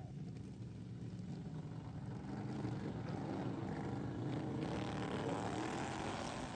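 Racing lawnmower engines running hard on the track, growing louder toward the middle and easing off near the end as the mowers pass.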